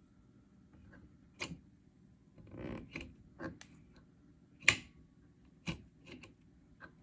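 Clicks and knocks from the front-panel control knobs of a 1955 DeVry wideband oscilloscope being turned and handled: about ten irregular sharp clicks, the loudest about two-thirds of the way through, over a faint steady hum.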